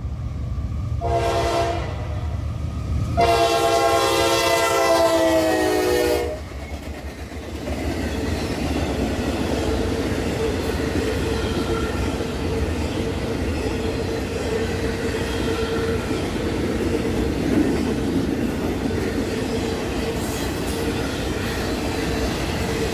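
Freight locomotive's air horn sounding a short blast and then a long one, the close of the grade-crossing signal, followed by the train rolling past with a steady rumble and clatter and a steady high tone over it.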